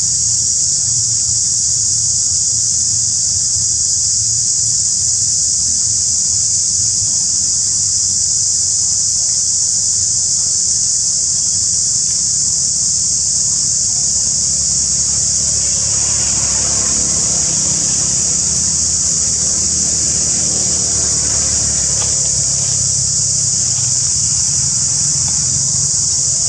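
Cicadas droning in a loud, steady high-pitched chorus, with a low rumble underneath.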